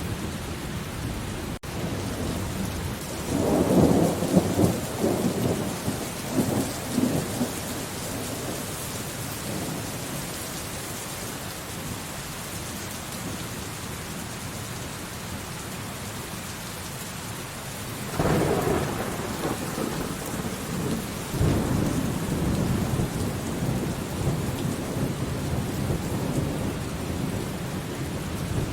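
Steady rain with thunder rolling over it: a rumble starts about three seconds in and rolls on in several peals for about five seconds. A second clap comes at about eighteen seconds, and a third a few seconds later fades slowly.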